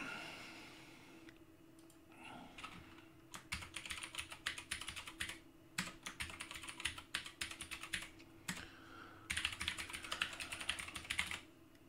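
Computer keyboard typing in three quick runs of keystrokes separated by short pauses, with a few single key clicks between them.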